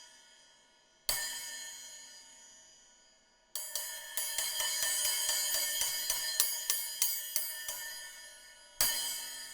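Zarcon Silent Set-E low-volume cymbals in NS10 alloy. One cymbal is struck about a second in and rings out. A quick run of repeated strikes follows for about five seconds. One loud hit near the end is left to ring.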